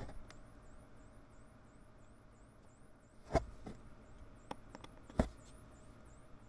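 Small laser-cut wooden kit parts being handled on a cutting mat: a few light clicks and taps, the loudest two about three and a half and five seconds in. Behind them is a faint high-pitched whine that rises and drops a little over twice a second.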